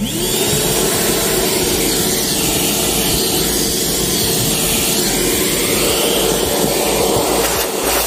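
Corded vacuum cleaner switched on: its motor spins up with a rising whine, then runs steadily with a rush of suction as the hose nozzle vacuums a car's interior.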